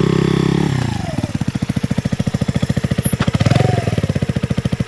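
Herald Maverick 125's single-cylinder four-stroke engine running steadily as the bike rides past. About a second in, the engine note falls and settles into an even, pulsing beat as the bike slows. There is a brief blip of throttle about three and a half seconds in.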